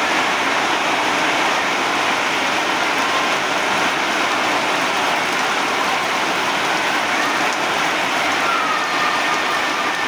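Steady rain falling, an even, unbroken hiss of rain on surfaces.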